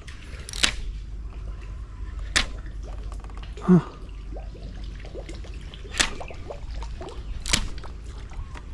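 A topwater lure being twitched across the river surface, making a few sharp splashes a second or two apart, with a deeper, louder plop about halfway through.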